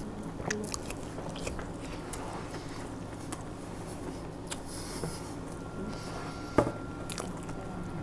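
A person chewing and biting food close to the microphone, with wet mouth sounds and small clicks, and one sharp knock about two-thirds of the way through.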